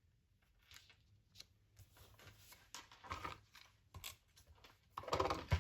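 Paper being handled and slid into place on a cardstock base: faint, intermittent rustles and light taps, a little louder about five seconds in.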